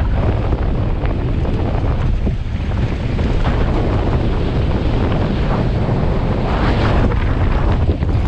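Heavy wind buffeting the microphone: a loud, steady rush with a deep low rumble, as from a camera moving fast on a descent.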